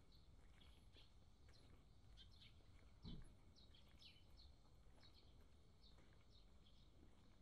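Small birds chirping faintly, many short high calls scattered throughout, over a low outdoor hum. A single low thump about three seconds in.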